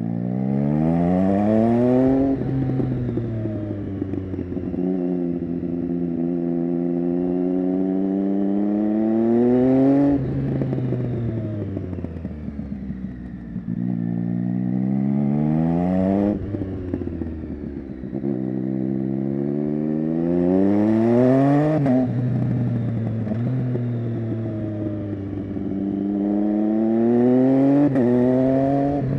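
2015 Triumph Street Triple 675 Rx's inline three-cylinder engine through an SC-Project Conic exhaust. The revs climb under throttle five times, and each climb ends in a sudden drop as the throttle shuts, then sags on the overrun.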